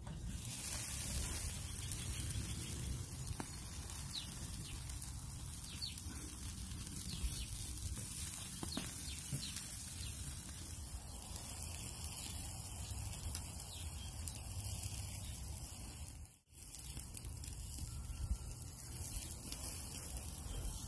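Steady outdoor background noise, a low rumble under a high hiss, with a few faint bird chirps in the first half and a brief dropout near the end.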